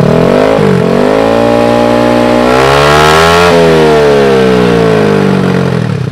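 Tuned-up 130 cc Honda Scoopy scooter's single-cylinder four-stroke engine revved on the stand through an SKR aftermarket racing exhaust. A short blip comes first, then one long rev climbs to a peak about three and a half seconds in and falls back toward idle near the end.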